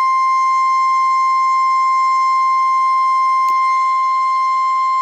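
NOAA Weather Radio 1050 Hz warning alarm tone: a single loud, steady high-pitched tone, the signal that a warning is about to be broadcast.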